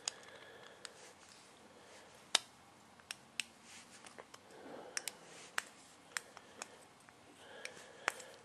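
Scattered small metal clicks and taps, about ten of them at irregular spacing, as a long screwdriver works in the jets of a small minibike carburetor, screwing them in and tightening them. The sharpest click comes about two and a half seconds in.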